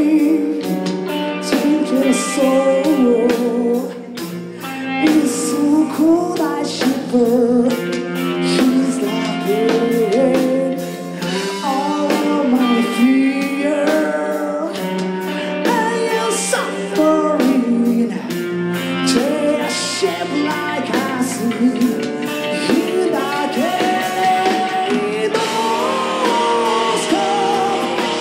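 Live rock band playing: a man singing over electric guitar, bass and drums.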